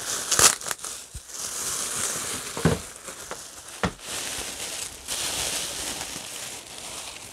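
Plastic wrapping crinkling and rustling as it is pulled and handled off a doll, with a few sharp crackles, the loudest about half a second in.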